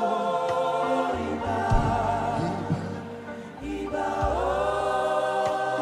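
Gospel choir singing long held notes with instrumental backing, in two phrases with a short break between them about halfway through.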